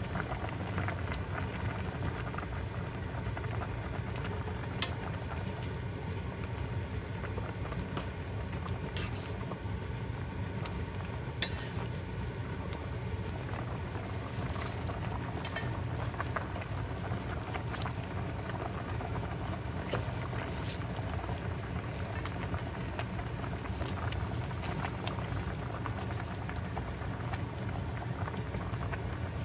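Pot of chicken soup boiling steadily on the stove, with scattered small pops and clicks over the bubbling.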